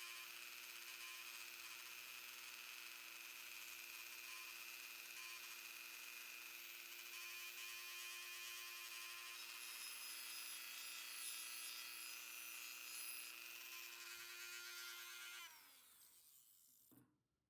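Dremel rotary tool running at speed with a brush attachment scrubbing grime off a pocketknife: a steady whine with a scratchy hiss. Near the end it is switched off, and the whine falls in pitch as it spins down, followed by a small click.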